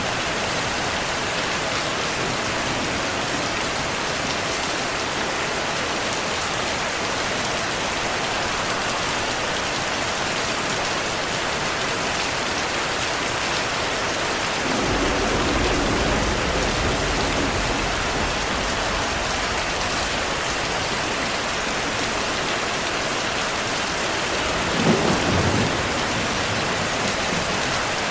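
Steady heavy rain, with a low rumble of thunder about halfway through and a short, louder clap of thunder near the end.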